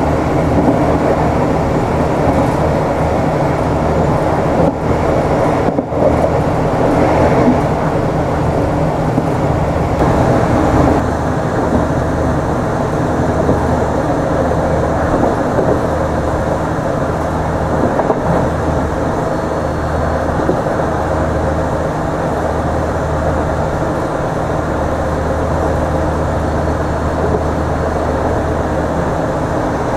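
Steady running noise of an Irish Rail 29000 class diesel multiple unit at speed, as heard in the passenger saloon: a continuous rumble with a low hum. About eleven seconds in, the hiss lessens a little.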